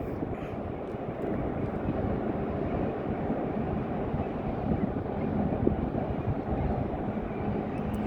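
Boat engine running with a steady low rumble, mixed with wind and water noise. A faint steady hum rises slightly in the second half.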